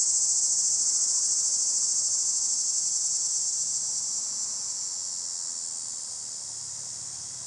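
Steady high-pitched insect chorus, a continuous buzzing trill that slowly fades.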